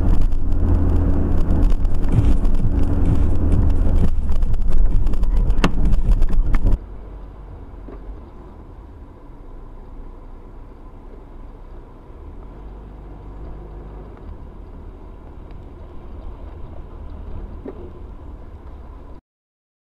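Car interior noise picked up by a dashcam: a loud low rumble of engine and tyres on the road, with a few sharp clicks before it cuts off at about seven seconds. After that comes a quieter, steady drive noise from another car, with a faint steady whine, until it stops shortly before the end.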